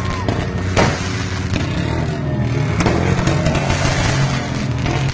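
A vehicle engine running steadily under the din of an outdoor crowd, with a few sharp cracks.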